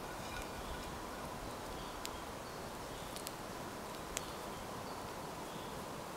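Steady faint background hiss with a few small sharp clicks of light handling at a metal pan and a glass jar, the sharpest about four seconds in.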